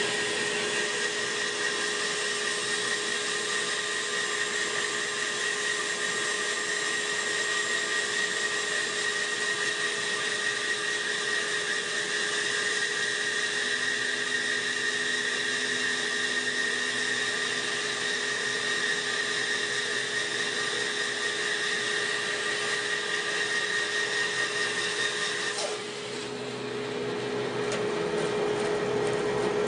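Bandsaw ripping lengthwise through a bark-covered green log, a steady cutting noise with a high whine over the motor's hum. About 26 seconds in the blade clears the wood and the whine stops, leaving the saw running free.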